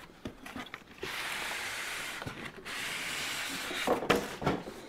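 A styrofoam inner box sliding out of a cardboard outer box, a steady scraping hiss in two long pulls, followed by a few knocks as the boxes are handled near the end.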